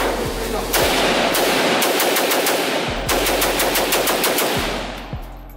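Rapid gunfire in long strings of fast shots, starting about a second in and dying away near the end.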